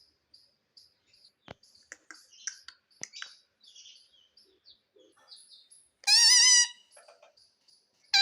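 Pet parrot making soft, high chirps and clicks, a few a second, then one loud, harsh call about six seconds in.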